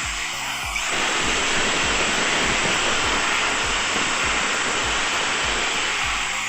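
Bosch GDC 120 marble cutter's electric motor running at full speed, a steady loud whir that grows louder about a second in. With its new bearing and carbon brushes it runs evenly, with no grinding or rattle. A steady low beat of background music runs underneath.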